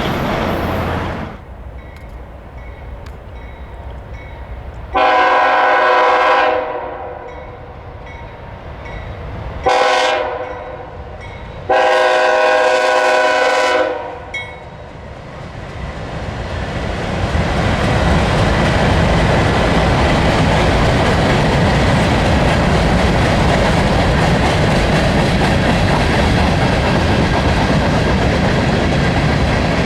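A locomotive's multi-note air horn sounds three blasts, long, short, then long. Then a train rolls past with a steady rumble of wheels on the rails that builds and holds to the end.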